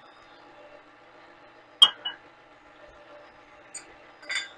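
Sharp clinks and knocks of small glass bowls being handled and tapped at a stainless stand-mixer bowl, one loud clink about two seconds in with a lighter one just after, and another near the end, over a faint steady hum.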